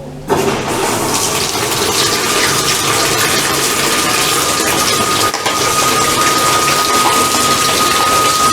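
Washing machine filling with water: a steady rush of water into the drum that starts abruptly about a third of a second in, with a thin steady whistle joining it about two seconds in.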